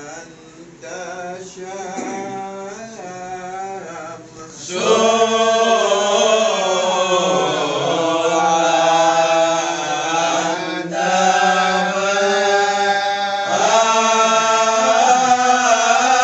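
A group of men chanting marhaban together, Malay devotional verses in praise of the Prophet, with several voices singing in unison. The singing grows louder about five seconds in.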